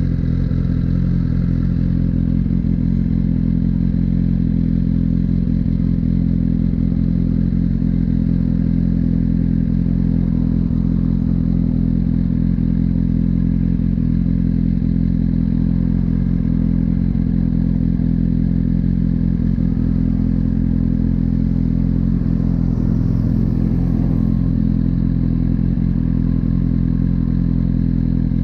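2018 Suzuki GSX-R1000R's inline-four engine idling steadily, with no revving.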